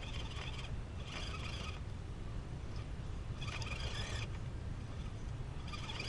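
RC rock crawler working over granite rocks: four short bursts of electric drivetrain whir and tyre scrabbling as it is throttled in pulses, over a steady low rumble.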